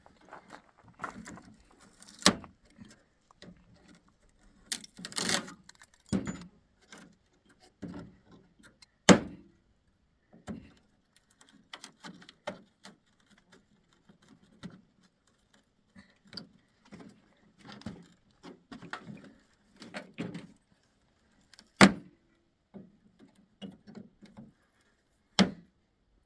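Irregular clatter and knocks of wood and tools being handled, with four sharp, loud knocks spread through.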